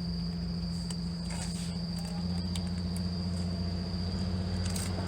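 Crickets trilling in one steady high note over a low, steady hum that grows louder about two seconds in, with a few light clicks of handling.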